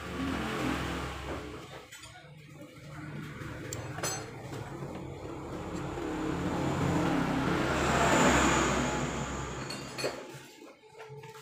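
Metal engine parts clinking and knocking together as they are handled, over a rushing noise that swells to its loudest about eight seconds in and then dies away.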